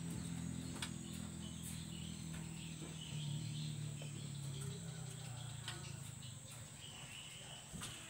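Outdoor ambience: a low steady hum that fades over the second half, a faint continuous insect drone, a few faint bird chirps and scattered small clicks.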